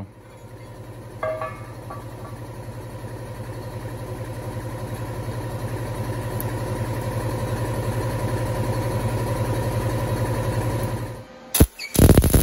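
A steady mechanical hum with a fast, even pulse grows gradually louder for about eleven seconds, then cuts off. After a click, the loud crackling hiss of a MIG welding arc starts near the end.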